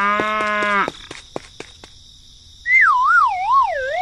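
A pitched sound with a clear tone lasting under a second, a few light clicks, then a warbling siren-like tone that wavers about twice a second while sinking steadily in pitch.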